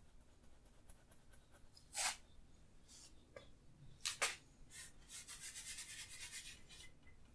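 Wide bristle paint brush rubbing oil paint on a palette and on a stretched canvas: a few separate strokes, then a quick run of short back-and-forth strokes near the end.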